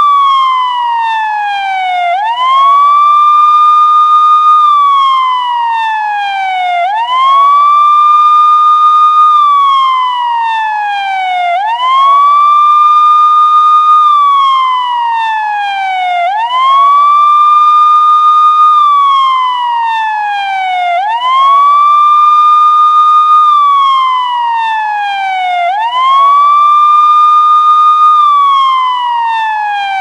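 US police car siren sounding its wail tone. The pitch rises over about a second, holds briefly, then falls slowly, in an even cycle about every five seconds.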